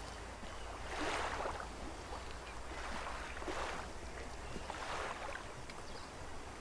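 Sea water washing against a rocky shore in a few soft swells, over a steady low rumble of wind.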